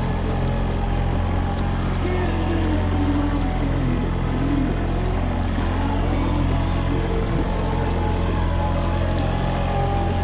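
Boat motor running steadily at trolling speed, a constant low hum.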